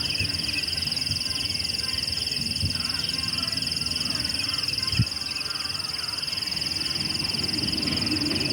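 Outdoor nature ambience: a steady high-pitched buzzing drone, typical of an insect chorus, with bird calls over it and a single sharp knock about five seconds in.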